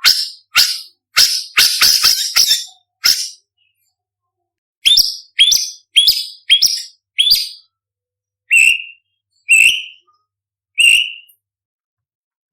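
White-rumped shama singing loud, varied whistled phrases. A quick run of notes comes first, then after a pause another series, then three slower, lower whistles about a second apart.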